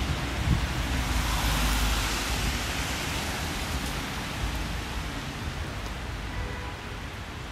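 Wet city street ambience: a steady hiss of traffic and tyres on wet asphalt, swelling about one to three seconds in and then easing off, over a low rumble of wind on the microphone.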